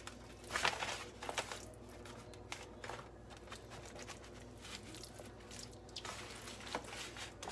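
A hand rubbing yellow mustard into raw pork ribs: faint, irregular wet squishing and rubbing strokes, over a steady low hum.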